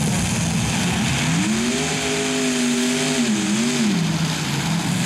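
Light modified pulling tractor with many exhaust stacks revving at the start of a pull: its engine pitch rises about a second in, holds, dips briefly and rises again, then falls back near the end.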